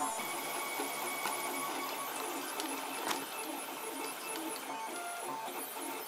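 3D printer's stepper motors whining through short printing moves at a slow 25% print speed, the pitch jumping every fraction of a second as each move changes direction and speed.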